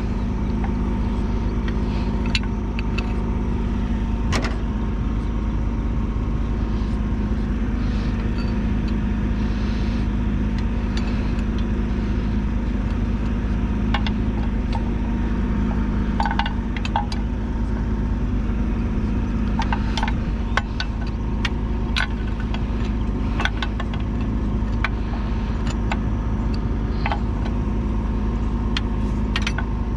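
John Deere 450C bulldozer's diesel engine running steadily, with sharp clicks and clanks now and then.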